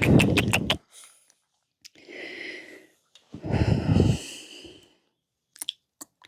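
Close-microphone handling noise from microphones being adjusted: rustling bumps with clicks, then breath-like puffs and rubbing in a few separate bursts, with a couple of small clicks near the end.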